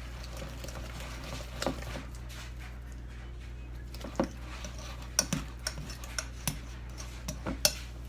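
Hand dough hook stirring flour and water into sourdough starter in a bowl, clinking and knocking against the bowl: a few scattered knocks at first, then quicker, irregular clinks from about halfway through. A steady low hum runs underneath.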